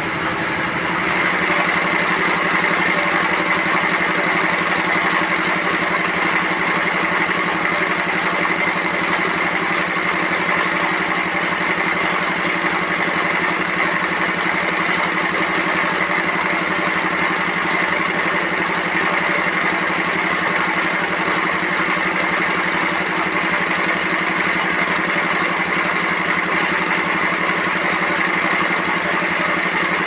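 A sawmill's stationary engine and machinery running steadily at idle, with a constant hum and a steady higher whine, not cutting.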